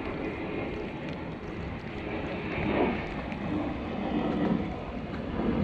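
Wind noise on the microphone over water moving around a kayak's hull: a steady, rough rush.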